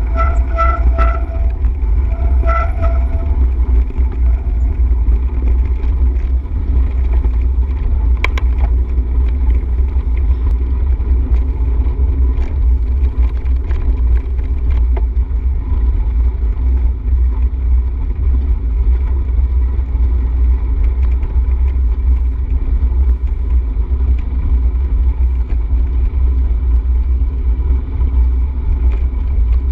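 Wind buffeting a moving camera's microphone during a bicycle ride: a loud, steady low rumble. A few short pitched notes sound in the first three seconds.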